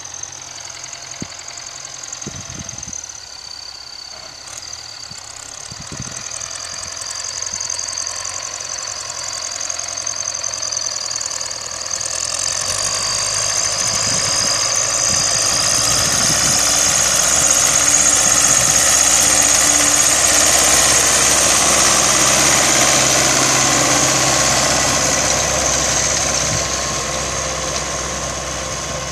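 Belarus MTZ-82 tractor's four-cylinder diesel engine running steadily under load as it pulls a spring-tine cultivator through the soil. It grows louder from about halfway through as the tractor approaches, is loudest about two-thirds of the way in, and eases slightly near the end.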